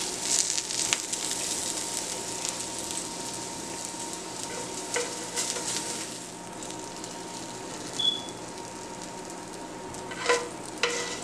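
Onions sizzling in a frying pan: a steady hiss that eases off about halfway through. A few sharp clicks and taps come near the start, in the middle and near the end.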